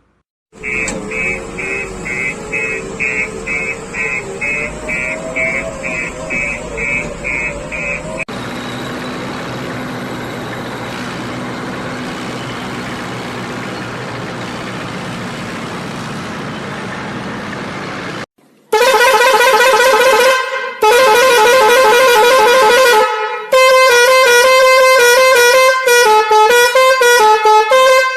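Vehicle sound effects: a motor drone with a repeated beep about twice a second, then a steady engine rumble. After that come loud vehicle horn honks, long blasts at first and then quick notes changing pitch like a tune.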